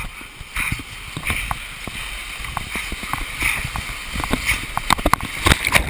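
Whitewater rapids rushing and splashing around a plastic sit-on-top kayak, with frequent sharp splashes and knocks throughout. The splashing grows louder and busier near the end.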